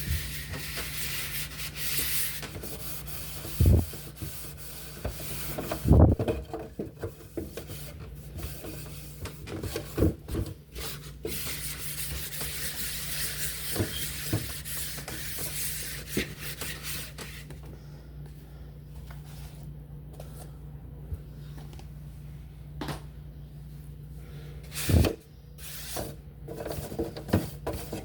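Hand scrubbing of refrigerator surfaces with a gritty baking soda paste: a scratchy rubbing with a few sharp knocks. The rubbing stops about two-thirds of the way through, leaving only scattered clicks and a knock.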